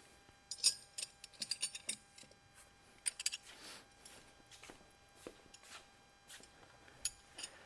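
Scattered light metallic clicks and clinks of hand tools on tractor parts, in small clusters, with a brief scrape about three and a half seconds in.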